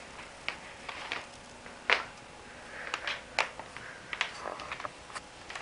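Irregular light clicks and taps, a dozen or so with no steady rhythm; the sharpest comes about two seconds in and a cluster follows a second or so later.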